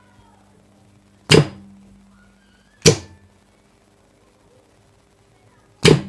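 Motor contactor pulling in with a loud clack and humming steadily while its coil is energised, then clacking out about a second and a half later as the float switch is tilted back and forth. It clacks in again near the end.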